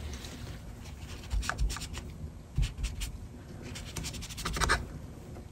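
A cloth rubbing over the sheet-metal plate of a Mac Plus 800K floppy drive in short, irregular scratchy strokes, wiping off old dried lithium grease.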